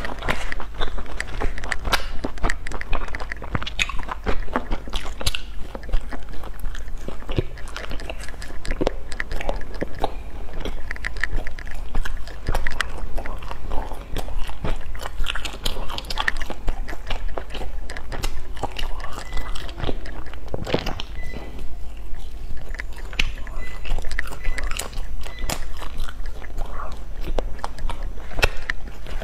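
Close-miked eating sounds: repeated bites into crisp-crusted baked pastries, with chewing and many small crackles and crunches of the crust.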